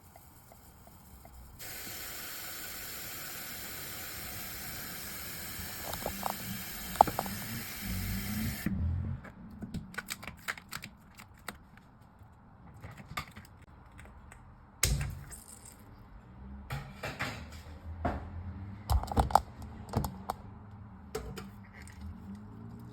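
A steady spray-like hiss lasting about seven seconds that cuts off suddenly, followed by scattered crinkles, clicks and taps from handling the sticky nano tape.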